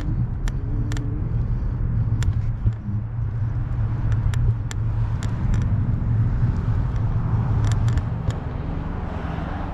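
Steady low rumble of road traffic, with a vehicle's hiss swelling near the end and a scattering of sharp clicks.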